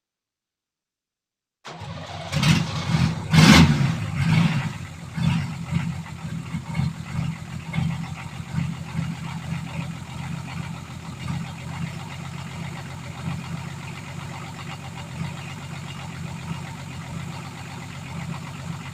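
Nissan SD33 inline-six diesel engine on its first start: it comes in suddenly, runs rough with loud uneven bursts for a couple of seconds, then settles into a steady idle.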